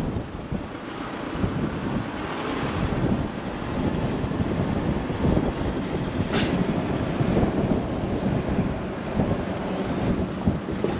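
Wind buffeting the camera microphone: a gusty, rumbling noise that rises and falls, with one sharp click about six seconds in.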